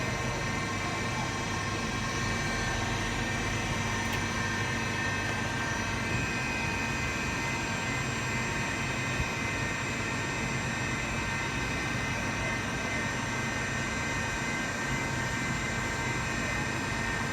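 Hamai 3VS CNC milling machine running steadily: a machine hum with several constant whining tones over a noisy hiss. Some of the higher tones change about six seconds in.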